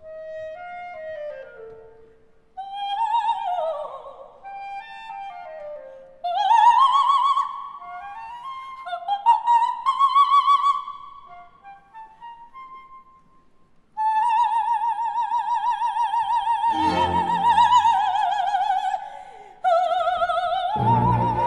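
Background music: a slow operatic solo melody with strong vibrato, in short phrases and then one long held note, with low accompaniment coming in near the end.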